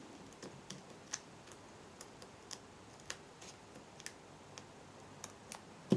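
Faint, irregular light clicks and taps from fingers handling and pressing small paper pieces and foam adhesive dots on a craft mat, with a sharper tap near the end.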